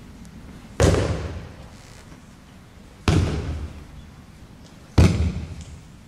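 Three loud slaps of an aikido partner's breakfalls (ukemi) landing on tatami mats, about two seconds apart, each echoing briefly.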